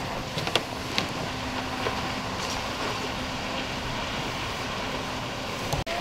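Steady engine-like rumble with a faint hum, and a few sharp cracks from the fire burning through a trailered boat, most of them in the first half.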